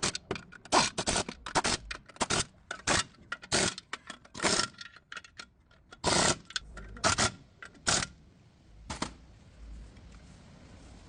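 Irregular series of sharp knocks and short scrapes, a few a second, from work with metal tools on a vehicle's clutch parts; it stops about nine seconds in.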